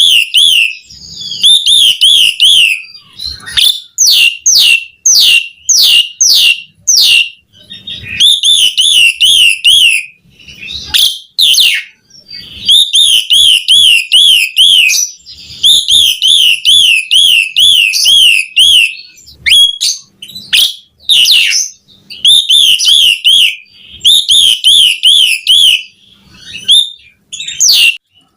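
Pied starling (jalak suren) singing loudly and without pause in vigorous full song. Phrases of fast, wavering trills alternate with runs of quick sweeping whistled notes, with only brief gaps between phrases.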